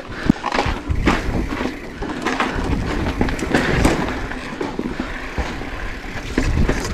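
Mountain bike rolling fast over a rocky dirt trail: tyres crunching on grit and stone, the frame and parts rattling and clunking over rocks. A low wind rumble sits on the microphone throughout.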